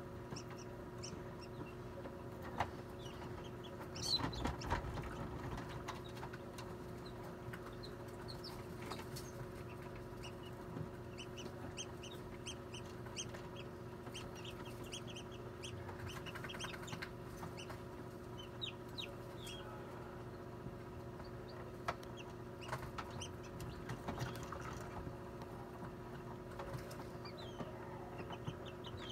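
Newly hatched chicks peeping inside an incubator: many short, high peeps over the incubator's steady hum, with a few soft knocks, the loudest about four seconds in.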